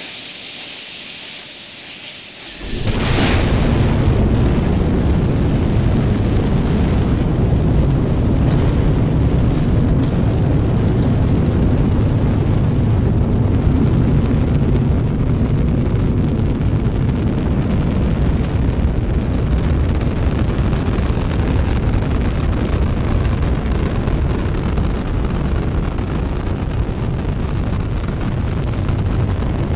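Space Shuttle launch: a hiss for the first couple of seconds, then a deep, loud rocket-engine roar that starts abruptly about two and a half seconds in and runs on steadily. It comes from the shuttle's main engines and solid rocket boosters through liftoff and ascent.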